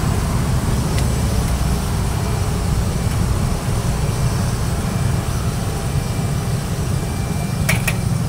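Steady low rumble of a gas wok burner firing under a large steel wok of broth. The ladle clinks against the wok once about a second in and twice near the end.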